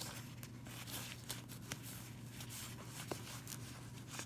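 Stack of cardboard trading cards being thumbed through by hand, cards sliding and flicking against each other in quick, irregular swishes, over a steady low hum.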